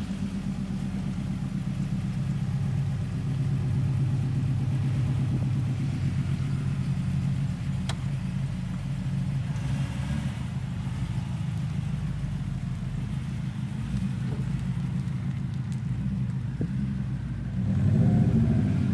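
Mk2 Volkswagen's engine idling close by, a steady low rumble as the car rolls slowly along. Near the end a louder engine sound swells up for a second or two.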